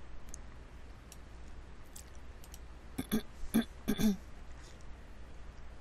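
A woman clearing her throat in three short bursts about three seconds in, with faint computer mouse clicks around them.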